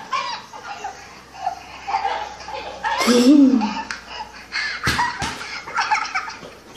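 Laughter and voices, with a loud pitched laugh or exclamation about three seconds in and two sharp knocks about five seconds in.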